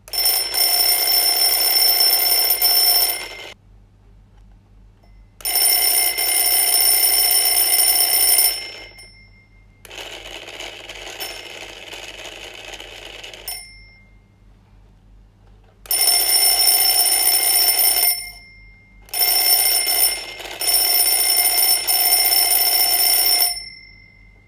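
IKEA Dekad twin-bell alarm clock ringing in five loud bursts of a few seconds each with short pauses between them, the middle burst weaker. The stop-and-start ringing is taken by the owner as a sign that the new clock is already broken.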